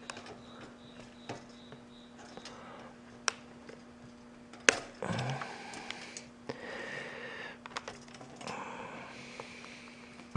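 Clicks, taps and scraping as a toaster's circuit board is worked free of the plastic tab that holds it in place, with one sharp click a little under halfway through followed by several seconds of rubbing and scraping.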